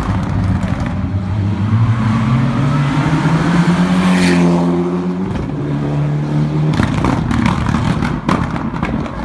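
Rally car accelerating hard toward and past, its engine pitch climbing and then dropping as it goes by. About seven seconds in the engine note cuts off as the throttle is lifted, and a rapid run of exhaust pops and crackles follows.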